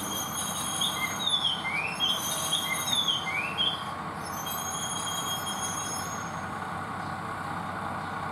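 Tsugaru Railway Tsugaru-21 diesel railcar creeping to a stop, its engine running steadily, with a run of short squeals rising and falling in pitch from the running gear about one to four seconds in. After that the engine settles to a steady idle.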